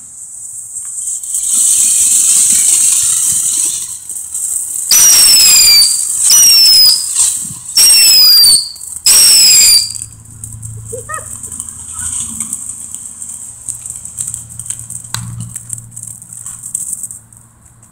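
Killer Bee whistling firework: a hissing fuse, then four loud, shrill whistles in quick succession, each falling in pitch.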